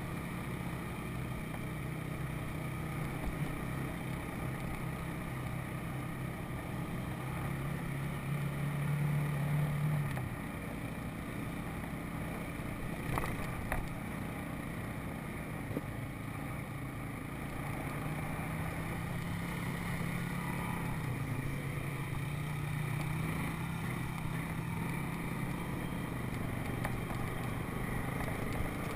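Four-wheeler (ATV) engine running while riding a dirt trail, the engine climbing in pitch and loudness under throttle about eight to ten seconds in, dropping off suddenly at about ten seconds, then picking up again in the second half.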